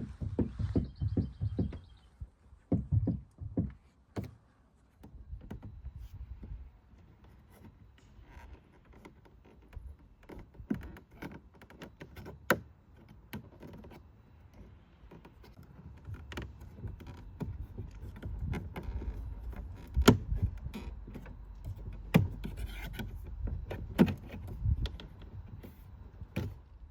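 Irregular sharp knocks and clicks from inside the rear door of an Audi Q7, over a low rumble. A fast run of low thumps comes in the first two seconds, and the loudest knocks fall near the end.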